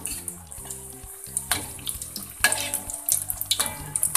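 Mini egg martabak in spring-roll wrappers sizzling and crackling as they shallow-fry in hot oil, with a few sharp clicks partway through.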